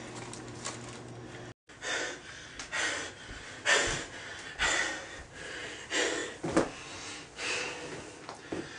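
A person breathing in short, hissy puffs close to the microphone, about one a second, after a brief dropout where the picture cuts.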